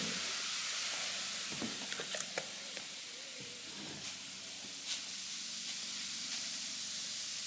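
Baking soda and vinegar reaction fizzing as foam spills out of a bottle volcano, a steady soft hiss of bursting bubbles. A few light clicks and taps come over it in the first half.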